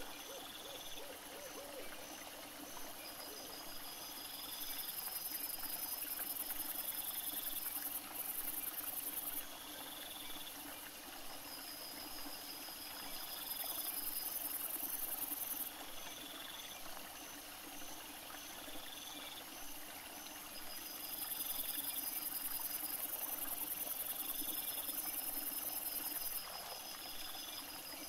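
Night insect chorus: crickets and bush-crickets chirping in steady repeated pulses, with a shrill high buzz that comes and goes in stretches of several seconds, starting and stopping abruptly.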